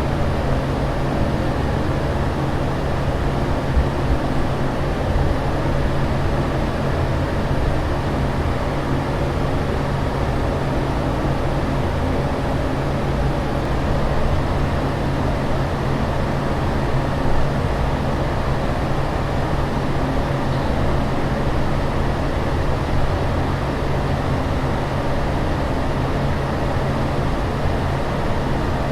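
Steady, unbroken aircraft-cabin drone: a constant rush of noise over a low, even hum, with no changes in level.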